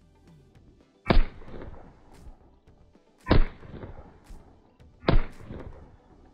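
Three pistol shots, about two seconds apart, each a sharp crack followed by a short ringing tail.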